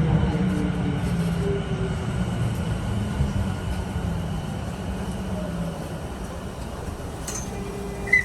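Tokyu 3000-series train's TKM-98 traction motors whining as the train slows, the tones gently falling in pitch and the sound fading. There is a brief high blip near the end.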